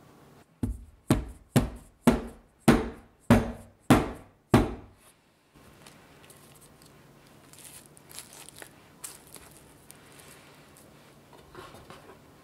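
A metal round cake pan holding cheesecake filling knocked down on the countertop eight times, about twice a second, each a heavy thump that dies away quickly, settling the filling and knocking out air bubbles. Then faint crinkling of plastic wrap stretched over the pan.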